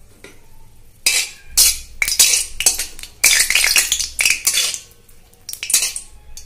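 Flat spatula scraping and clinking against a metal wok as a dried red chilli is stirred in hot mustard oil, with the oil sizzling. This is the tempering (phoron) at the start of the dish. The noise comes in irregular bursts from about a second in.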